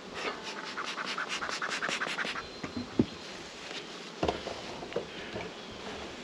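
Metal hive tool scraping across the wooden parts of a beehive in a quick run of repeated strokes, followed by a few separate knocks of gear being set down on the hive.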